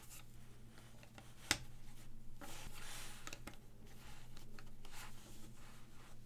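A-shaped plastic LEGO wedge plates being handled and pressed together by gloved fingers. One sharp click comes about a second and a half in, followed by soft rubbing and a few lighter clicks, over a steady low hum.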